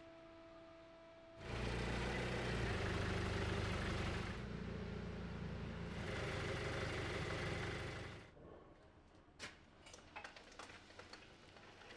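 A motor runs steadily for about seven seconds, starting and stopping suddenly, followed by a few light clicks.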